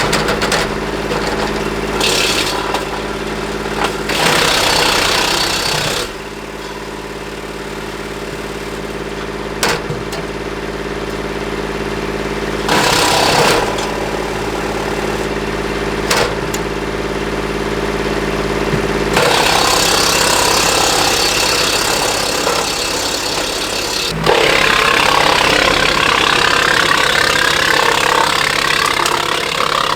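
Kubota L2501 compact tractor's diesel engine running steadily, driving a Woodland Mills WC46 PTO wood chipper, with several loud bursts of chipping as brush is fed through, the longest filling much of the last ten seconds.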